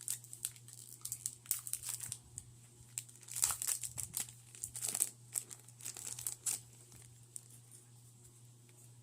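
Foil booster-pack wrapper crinkling and tearing as a Pokémon card pack is ripped open by hand, in a quick run of sharp crackles that dies down over the last couple of seconds.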